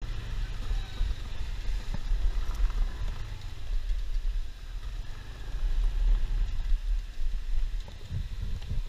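Motorcycle running on the move, with a low uneven rumble of wind buffeting the microphone.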